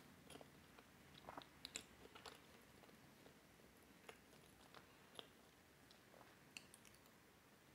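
Quiet close-up mouth sounds of a person chewing a Nutella puff-pastry twist, a cluster of small wet clicks in the first couple of seconds, then only a few scattered ones.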